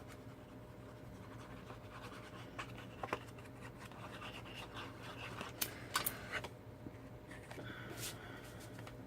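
Cardstock being handled and pressed down on a table: faint rubbing and scratching of paper, with a few sharp ticks and taps, over a low steady hum.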